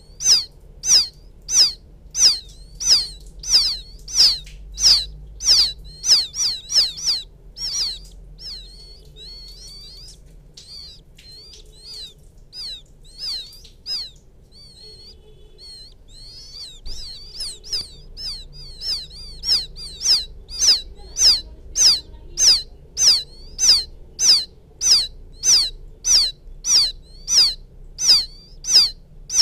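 Quail chicks peeping to call the mother bird, used as a trapping lure: short, high peeps about two a second, each falling in pitch. The peeps fade to faint, scattered calls for several seconds in the middle, then come back loud.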